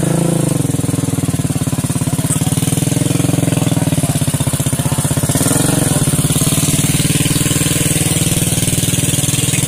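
Motorcycle engine idling close by, a loud steady rapid chugging that rises slightly in pitch twice, near the start and about halfway through.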